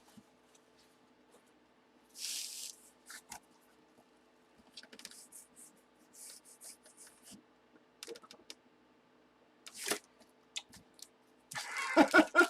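Intermittent rustling and crinkling of card packaging and plastic as a sealed trading-card box is opened and its contents handled, with a sharp click about ten seconds in and a louder burst of rustling near the end.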